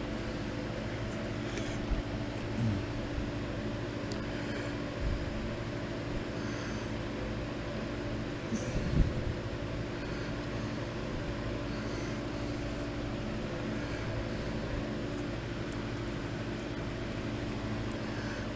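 A steady machine hum with a few fixed tones runs throughout. Over it come a few soft, brief taps and knocks from small wooden model parts being handled and pinned, the loudest a low knock about halfway through.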